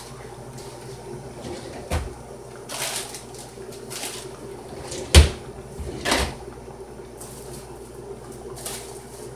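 Kitchen clean-up noises: a few knocks and bumps of things being set down and put away, the loudest a heavy thump about five seconds in and another a second later, over a steady low hum.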